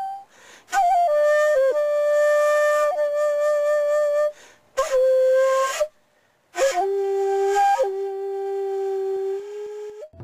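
Solo bamboo flute playing slow, long held notes in short phrases. Each phrase opens with a breathy attack and a bend in pitch, with brief pauses between phrases.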